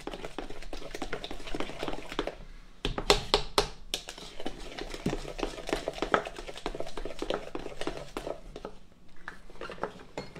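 A spoon stirring thick cornbread batter in a plastic mixing bowl, with quick clicks and scrapes against its sides and a few louder knocks about three seconds in.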